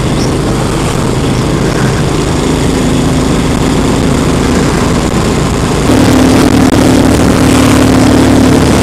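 Royal Enfield Continental GT's single-cylinder engine running steadily at road speed under the rider, mixed with wind and road noise; it gets a little louder about six seconds in.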